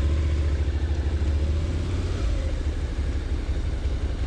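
Motorcycle engine running as the bike pulls away slowly from a stop, heard from the rider's seat as a steady low engine sound, with a faint rise in pitch about two seconds in.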